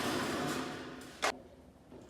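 Mebor 1200 band sawmill running and fading away as the cut winds down, with one sharp knock just over a second in.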